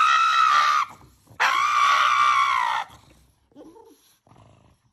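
Pug screaming in protest at having its nails clipped: two long, high-pitched wails, the first cutting off just under a second in and the second lasting about a second and a half, then only a few faint soft sounds.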